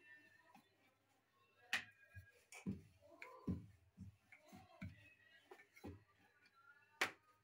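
Wooden rolling pin rolling and knocking on a wooden board as dough is rolled out: a handful of short, soft knocks, the loudest about two seconds in and again near the end.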